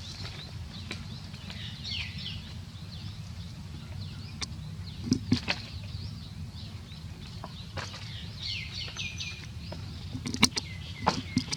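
Small birds chirping on and off over a steady low rumble, with a few sharp clicks or knocks about halfway through and again near the end.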